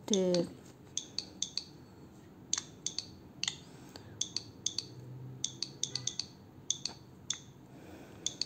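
Nintendo Switch on-screen keyboard key clicks, one short click per touchscreen tap, about twenty in quick irregular runs as a word is typed. It opens with a brief, louder sound that falls steeply in pitch.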